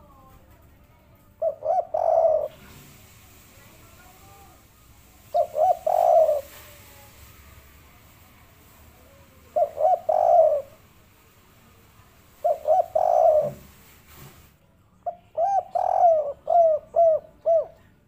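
Spotted dove of the three-note 'kuk 3' song type cooing: four short coo phrases a few seconds apart, then a longer run of repeated coos near the end.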